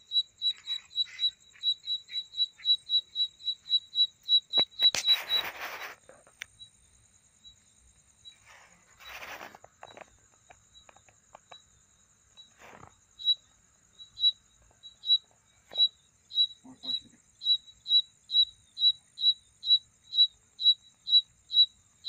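A male cricket's calling song: loud, evenly spaced high chirps, about three a second, over a steady high trill from other insects. The chirping breaks off about five seconds in, with a couple of brief rustles, and starts again about thirteen seconds in.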